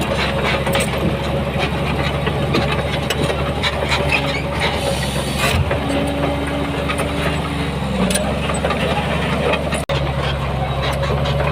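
Diesel engine of heavy earthmoving machinery running steadily under work, with scattered short clanks. The sound drops out for an instant near the end.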